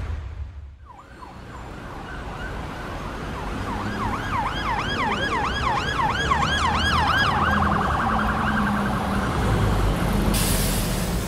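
Emergency vehicle siren in yelp mode, its pitch sweeping up and down about three times a second, then switching to a faster warble before it stops, over a low vehicle rumble.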